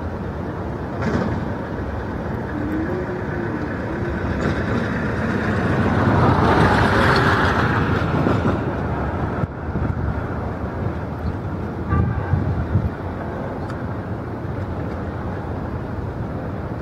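Steady rushing noise of jet airliner engines across an airport apron, swelling for about two seconds midway.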